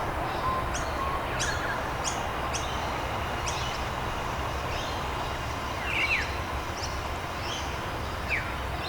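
Early-morning suburban ambience in Australia: small birds chirping, with short, sharp, downward-sweeping calls repeated every second or so over a steady low background rumble.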